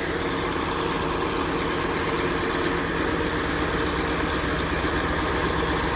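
Engine driving a sand barge's water pump, running steadily, with the hiss of water jets spraying from the hoses onto the sand.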